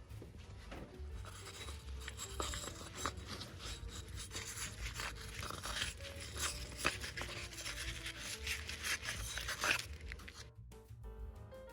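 Rapid scraping and rubbing on the BMW S50 cylinder head's deck surface, cleaning it, in quick irregular strokes that stop abruptly about ten seconds in. Background music plays underneath.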